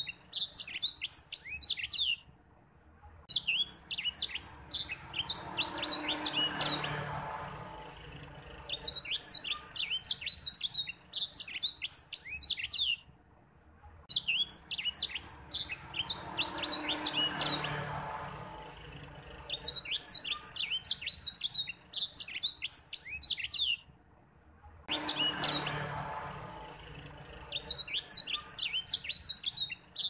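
White-rumped seedeater (edel sanger) singing: long runs of rapid, high twittering notes lasting several seconds each, broken by short pauses of about a second.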